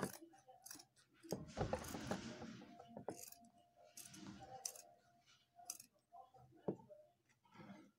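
Scissors cutting through heavy gobelin upholstery fabric: irregular snips and clicks, with the cloth rustling as it is moved about a second or two in.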